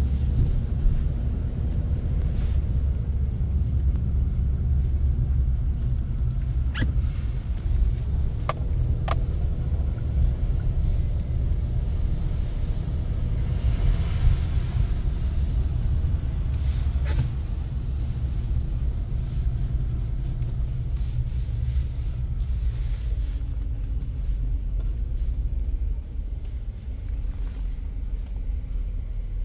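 Steady low rumble of road and engine noise inside a moving vehicle's cabin, with a few sharp clicks about seven to nine seconds in.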